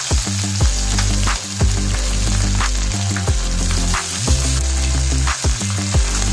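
Rava-coated whole fish sizzling in oil on a flat iron tawa, with metal spatulas scraping and tapping on the griddle now and then as the fish are turned. Background music with a steady bass line plays underneath.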